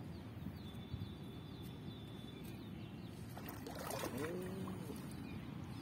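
Outdoor ambience with a steady low rumble and a thin high steady tone in the first couple of seconds. About four seconds in comes a short, curving chicken call.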